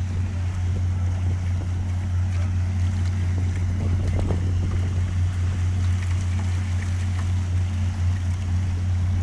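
Water rushing and splashing around a kayak surfing a sternwheeler paddleboat's wake, over a steady low rumble.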